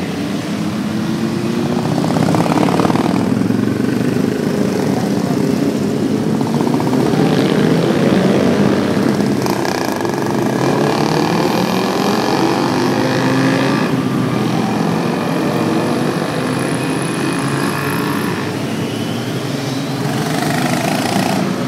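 A parade of motorcycles riding past one after another: many engines running together and revving up and down, with no break in the sound.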